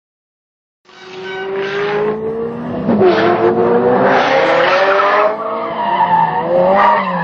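Ferrari 308 GTS's V8 engine revving hard, rising in pitch, with the tyres squealing as the car slides sideways; the sound starts about a second in.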